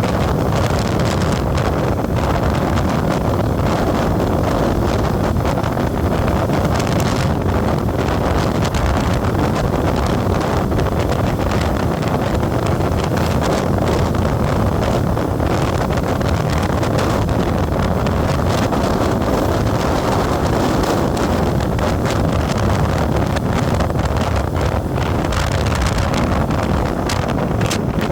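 Wind rushing over the microphone on a moving vehicle, with the steady hum of its engine and road noise underneath, unbroken throughout.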